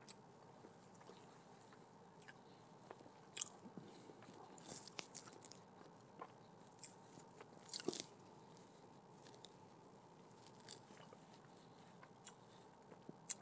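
Faint close-up chewing and mouth sounds of a person eating a biscuit, with scattered soft clicks and smacks, a little louder about eight seconds in.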